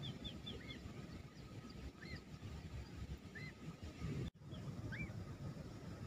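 Downy shore-bird chick peeping: short rising-and-falling peeps about every second and a half, with a quick run of higher chirps at the start. The chick is weak and seems to be hungry.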